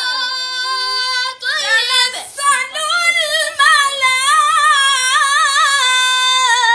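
A child's voice chanting Quran recitation in melodic tajweed style. It holds a long note for the first second or so, then sings 'tanazzalu' with quick wavering ornaments and settles into another held note near the end.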